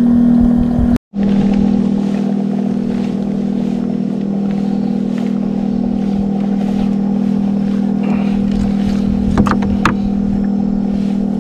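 Boat engine running steadily at a constant pitch, cutting out for a moment about a second in and then resuming, with a few faint clicks near the end.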